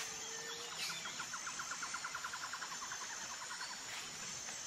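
Faint outdoor nature ambience: a steady high insect buzz, with a rapid trill of about eight pulses a second that runs for about three seconds from a second in.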